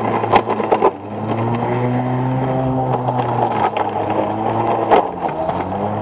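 36-volt Neuton CE6 cordless electric lawn mower cutting grass, its blade motor running with a steady hum. The pitch sags briefly about a second in and again near five seconds, with scattered sharp ticks over the hum.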